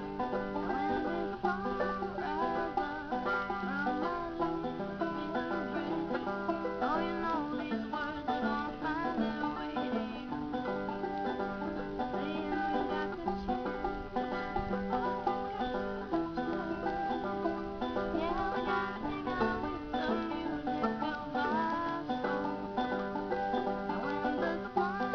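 A banjo and a guitar playing a picked tune together, the notes running on without a break.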